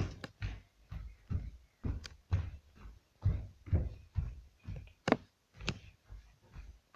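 Soft, irregular bumps and rubbing of a handheld camera jostled against the body, two or three a second, with a sharper click about five seconds in and another half a second later.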